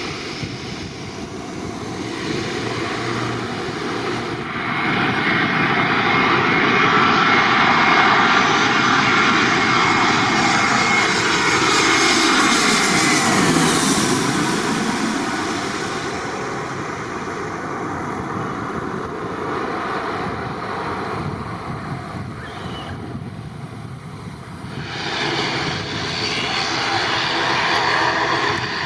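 A twin-engine jet airliner on landing approach passes low overhead. Its engine noise builds over several seconds, and its high whine drops in pitch as it goes directly over, about 13 seconds in, then fades. Near the end a turboprop airliner's engines grow loud again.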